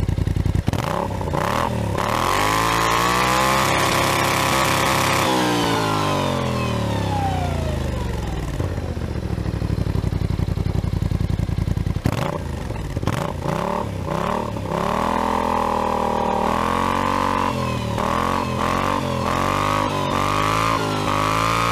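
Kymco AK 550i maxi-scooter's parallel-twin engine heard through a new Akrapovic carbon twin-outlet exhaust, revved while standing. From idle, the revs climb about a second in and are held high for a few seconds. They then fall away slowly over several seconds, followed by a string of quick throttle blips.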